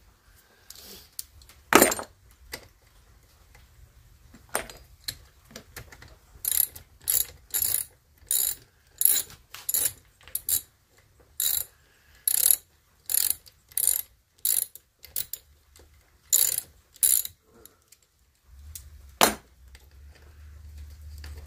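Socket ratchet wrench clicking in quick runs of short strokes while backing out the cylinder head bolts of a small air-cooled lawnmower engine. There is a sharp metal knock about two seconds in and another near the end.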